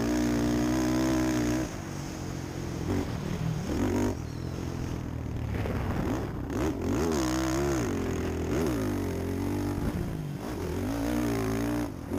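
Quad (ATV) engine under throttle: held at high revs, easing off about two seconds in, then revving up and down in repeated rises and falls through the rest of the run.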